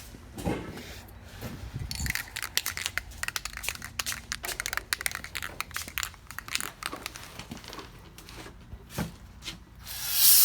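Rapid, irregular scrubbing and scraping while a truck's ABS sensor is cleaned, with a few knocks, then a loud aerosol spray hissing near the end.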